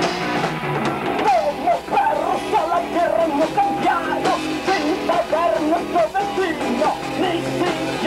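Rock band playing live, with distorted electric guitars, bass and drums; a male vocal comes in about a second in, sung hard and shouted over the band.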